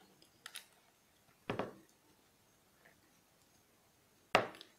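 Hard plastic clicks and knocks from an action camera's clear waterproof case and its mount being handled: a faint click, a firmer knock about a second and a half in, and a sharp, loud click near the end.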